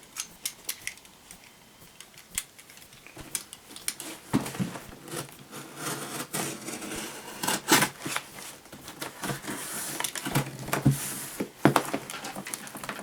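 A heavily packed cardboard box being worked open by hand: irregular clicks, knocks and scrapes of cardboard and packing, with a stretch of rustling near the end.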